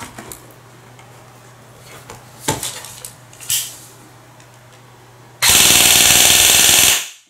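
G&G ARP 556 airsoft electric gun (M140 spring, high-speed motor, 11.1 V LiPo) firing one full-auto burst of about a second and a half: a rapid, even rattle at about 20 shots a second that stops sharply. A couple of light handling clicks come before it.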